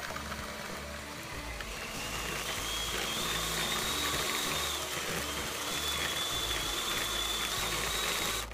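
Electric hand mixer running, its twin beaters whisking butter, sugar and eggs in a plastic bowl to cream them until frothy. Its whine rises in pitch about two and a half seconds in, then holds steady until the motor cuts off suddenly at the end.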